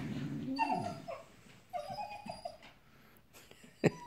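Dogs whining and whimpering in excitement at a squirrel outside the window: two high, wavering whines in the first half. A sharp knock comes just before the end.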